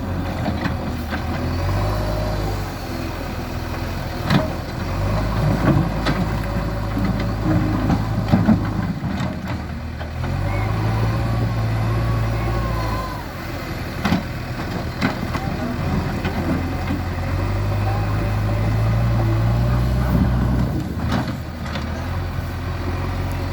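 JCB 3DX backhoe loader's diesel engine revving up and settling back again and again as the machine works the arm and bucket. Sharp clanks and thuds come every few seconds.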